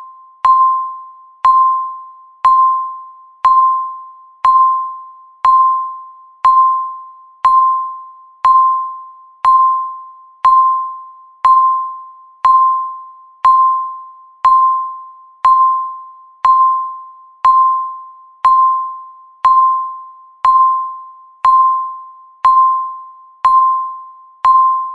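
Countdown timer beep, one short electronic tone each second marking the seconds ticking down. Each beep starts sharply and fades away before the next, all at the same pitch.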